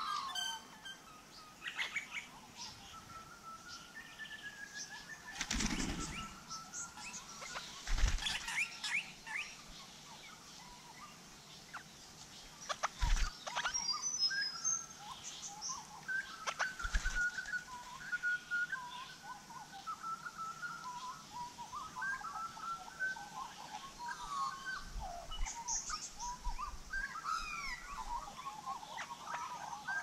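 Birds chirping and calling in short chattering notes, busiest in the second half, with several brief bursts of wing flapping in the first half as crimson rosellas come and go at a bird bath.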